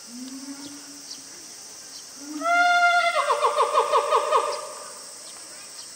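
A loud animal call from about two seconds in: a steady pitched note that breaks into a fast warbling trill of about eight pulses a second, then stops about two seconds later. A steady high hiss runs underneath.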